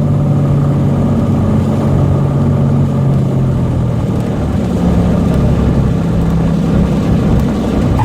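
Cessna 182's six-cylinder piston engine and propeller drone, heard loud inside the cockpit. The steady tone shifts to a different pitch about halfway through.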